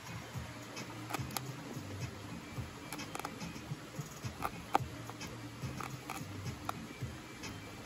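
A chef's knife chopping fresh thyme on a plastic cutting board: quick, irregular knocks of the blade against the board, several a second.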